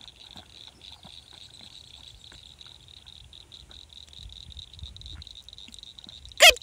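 Insects trill steadily and high-pitched over a faint low rumble of wind. Right at the end a loud pitched call cuts in briefly.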